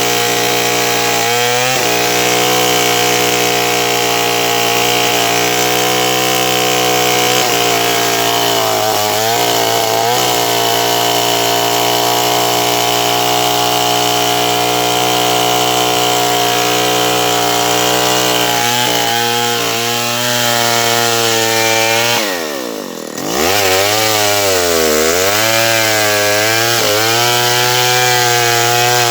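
Stihl 070 two-stroke chainsaw running at high revs under load while sawing wood. Its pitch wavers briefly about ten seconds in, then drops sharply and falls quieter for a moment about twenty-two seconds in before revving back up unevenly.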